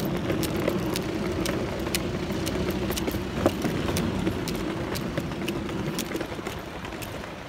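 Wheeled suitcase rolling over paving slabs: a steady rumble with sharp clicks about twice a second, the rumble easing off near the end.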